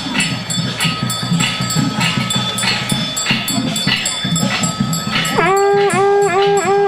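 Temple ceremonial music: a steady percussion beat of a little under two strokes a second, joined about five seconds in by a loud reed wind instrument, a suona, holding a note with quick ornamental dips.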